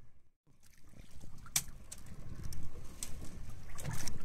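Steady low rumble of wind and water noise aboard a fishing boat at sea, with a few scattered small clicks and knocks. The sound cuts out briefly just after the start.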